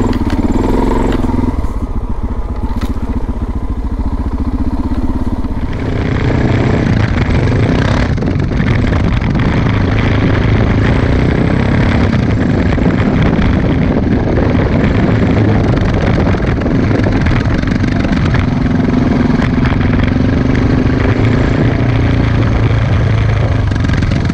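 Suzuki DR650's single-cylinder four-stroke engine running steadily as the motorcycle is ridden along a rough dirt road, with a rushing noise of wind and tyres that gets louder about six seconds in.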